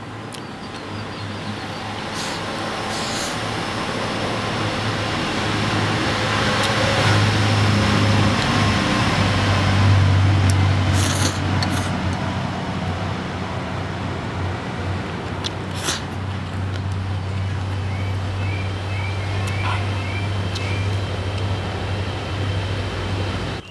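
A motor vehicle's engine running close by, growing louder over about ten seconds and then holding steady with a low hum, cutting off suddenly at the end. A few bird chirps come in near the end.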